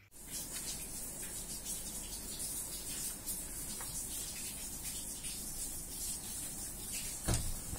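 Steady hiss with faint scattered ticks, and a dull thump about seven seconds in.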